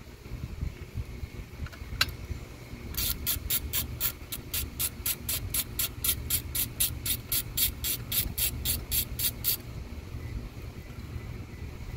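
Socket ratchet clicking as it backs out a 10 mm ignition coil pack mounting bolt: one click about two seconds in, then a quick, even run of clicks, about four or five a second, for some six seconds.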